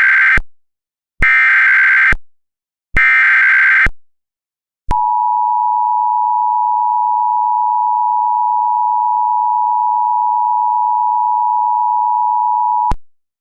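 Emergency Alert System tones: three short buzzy data bursts of the SAME header, the first already under way at the start. About five seconds in comes the steady two-tone EAS attention signal, held for about eight seconds before it cuts off sharply. Together they signal that an emergency alert message follows.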